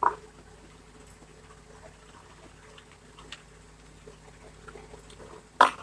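Faint computer keyboard keystrokes, a scattered few clicks as code is typed, over a low steady hum. A louder short sharp sound comes right at the start and another near the end.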